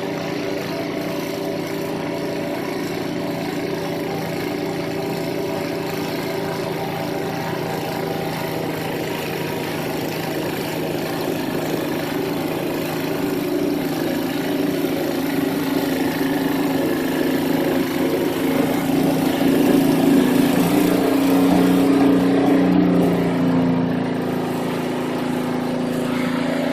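Craftsman two-stage snowblower's 5 horsepower Tecumseh engine running steadily. It grows louder from about halfway through and eases back near the end.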